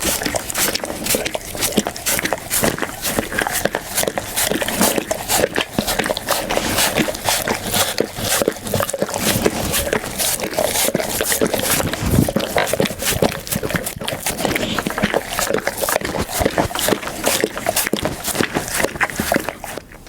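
Pit bull eating, chewing and crunching food close to the microphone with a dense, rapid run of crunches.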